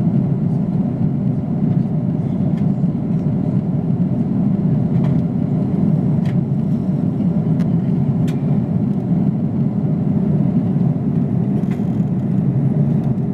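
Steady low rumble of cabin noise inside an Airbus A330 airliner in descent: engine and slipstream noise, with a few faint clicks over it.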